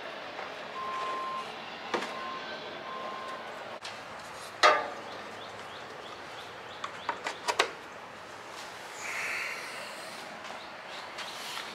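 Plastic clicks and knocks from the mower's yellow oil drain valve and hose being handled and clipped back onto the engine. There is one sharp click a little before halfway, then a few lighter clicks about two seconds later.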